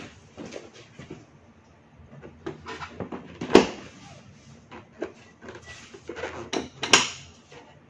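A Kawasaki Versys 650's seat being refitted: scattered handling knocks as it is set onto the frame, with a loud clunk about three and a half seconds in and another near the end as it is pressed down into place.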